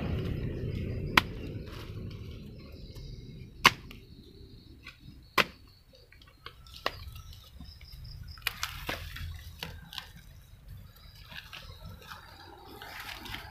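Hoe striking and chopping into soil, irregular sharp hits a second or two apart, the loudest about a third of the way in, with softer knocks between. A low rumble at the start fades out over the first few seconds.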